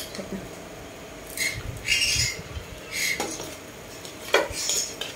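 Metal spoon stirring and scraping in a bowl: several short scrapes and clinks against the bowl's side, with one sharper click about four seconds in.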